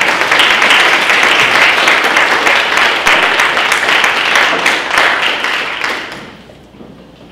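Audience applauding in a hall, a dense patter of many hands clapping that dies away about six seconds in.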